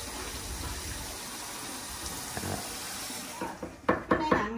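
Tap water running steadily into a sink while vegetables are rinsed under it. Near the end the hiss gives way to a run of sharp knocks: a wooden pestle pounding grains in a mortar.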